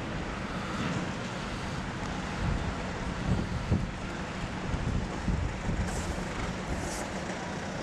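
Outdoor street noise: a steady rumble of road traffic with wind on the microphone, and a few soft thumps a little over three seconds in.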